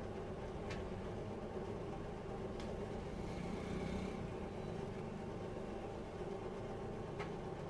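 Steady machine hum with a few fixed tones, and three faint light clicks as whole areca nuts are handled on a perforated metal sheet.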